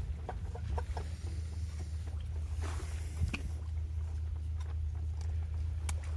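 A steady low rumble with scattered small clicks and taps over it.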